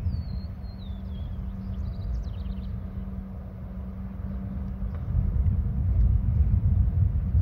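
Wind buffeting the microphone, a low rumble that grows louder after about five seconds, over a steady low hum. A small bird calls at the start: one falling whistle, then a quick run of short high notes.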